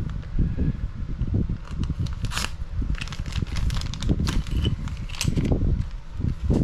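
Hands working with small plastic RC car parts and tools on a workbench: irregular clicks and rustles over dull knocks and rumbling handling noise.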